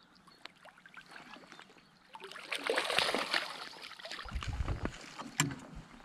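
Hooked black bass thrashing and splashing at the surface beside the boat, starting about two seconds in. It is followed by low thuds and a sharp knock near the end.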